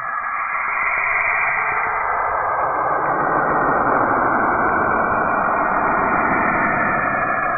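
Saturn's magnetic-field recording converted into sound: a continuous hissing, rushing noise that swells and fills out lower down about two seconds in.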